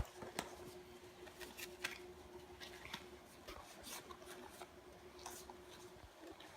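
Faint handling of Pokémon trading cards: scattered light clicks and rustles as the cards are shuffled and tapped, over a faint steady hum.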